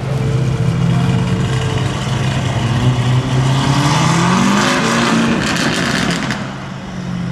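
Lamborghini Urus twin-turbo V8 through a straight-piped Novitec Race exhaust, running loud and rising in pitch from about two seconds in. From about five seconds in there is a run of sharp crackles that stops suddenly just after six seconds, leaving a lower, steadier drone.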